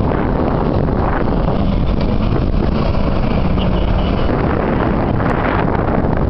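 Engines of 4x4 SUVs driving over sand dunes, a steady rumble mixed with heavy wind buffeting on the microphone.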